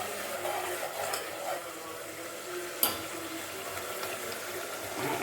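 Ground masala paste frying in hot oil in a pan while it is stirred, with a steady sizzle. A single sharp clink of the spoon against the pan about three seconds in.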